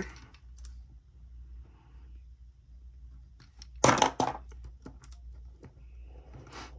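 Small scissors trimming paper, with light clicks and rustles of the paper being handled; one short, sharp crunching snip about four seconds in is the loudest sound.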